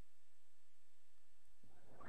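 Quiet room tone with a steady low hum; a soft noisy sound starts near the end.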